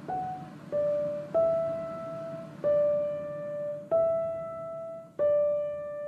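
Background piano music: a slow melody of six single notes, each struck and fading away, the last left ringing.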